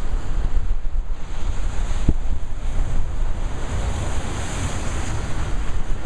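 Rough surf crashing and washing over the boulders of a rock jetty, swelling in a hiss of spray about four seconds in. Strong wind buffets the microphone with a heavy rumble throughout, and there is a single short knock about two seconds in.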